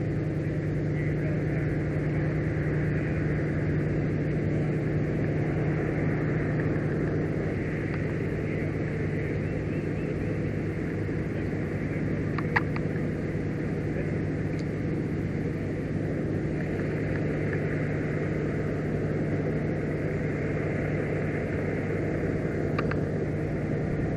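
Fire apparatus diesel engine running steadily at low revs, heard close to the camera mounted on the truck. There is a single sharp click about halfway through.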